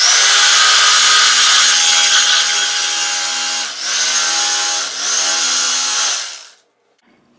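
Electric carving knife running as its blades saw through slab foam, a steady motor buzz that dips in pitch briefly twice and stops about six and a half seconds in.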